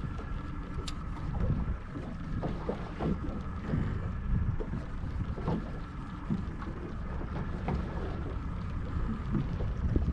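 Steady low rumble of wind and water around a small fishing boat, with scattered light knocks.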